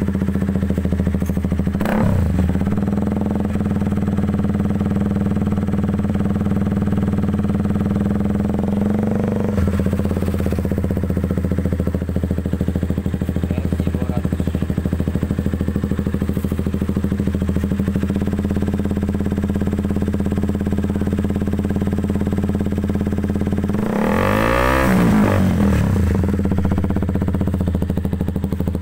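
KTM RC 200's single-cylinder engine idling steadily through an aftermarket SC Project-style stainless slip-on exhaust, with a deep bass note. Near the end it takes one quick throttle blip that rises and falls back to idle.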